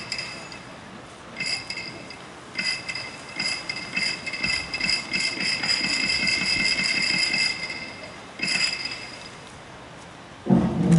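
Kabuki-style hyoshigi wooden clappers struck together with a ringing clack. A few spaced claps speed up into a fast, dense run that then thins out, the kabuki signal for the curtain opening. A much louder, lower sound comes in near the end.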